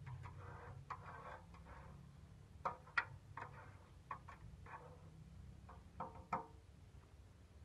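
Liquid splashing and dripping as a rusty steel knife blade is lifted out of a shallow steel soaking trough, with a few sharp metallic clinks and knocks as the blade strikes the trough. The clinks are loudest twice about three seconds in and twice again near the six-second mark.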